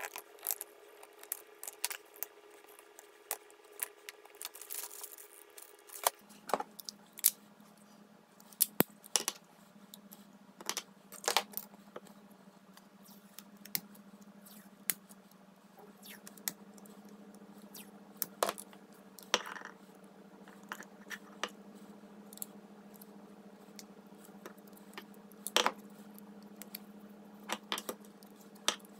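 Scattered sharp clicks, taps and rustles of hands wrapping a steel 1911 pistol in blue painter's tape, tearing off strips and handling the gun on a stone slab. A steady low hum comes in about six seconds in.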